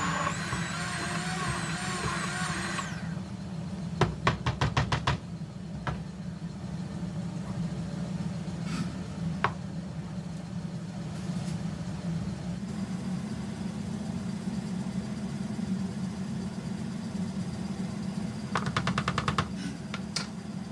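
Hand blender running with a steady low hum, with two short bursts of rapid clicking, about four seconds in and near the end.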